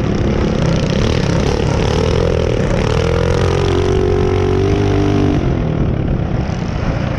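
Mini bike engine running hard under throttle with wind rushing over the microphone; the engine note eases off about five seconds in.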